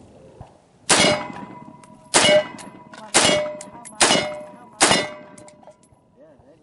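Five rifle shots from an AR-15-style rifle firing high-velocity .223 rounds, spaced about a second apart, each followed by the clang of the AR500 steel armor plate ringing on as it is hit.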